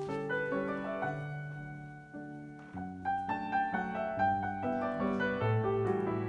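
Background piano music: a light melody of many short notes, one after another.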